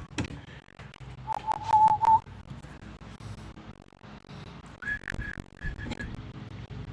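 A person whistling a few short notes, a lower run of notes about a second in and higher notes near the end, with light clicks and clatter of small metal parts being handled.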